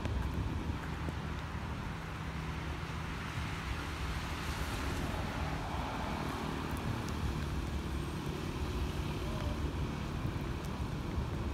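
Steady low rumble of city traffic, with wind buffeting the microphone.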